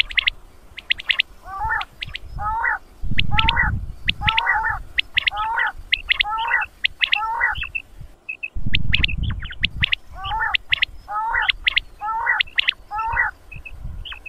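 Recorded quail calling in a fast, unbroken series of short repeated call notes, with sharp high clicking notes between them, played as a hunting lure call. Loud low rumbling noise comes in a few bursts underneath, the longest about three seconds in and again about nine seconds in.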